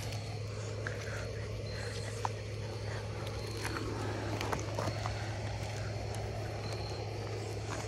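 Footsteps and a puppy's paws scuffing and crunching on loose gravel, with scattered small clicks of stones, over a steady low hum.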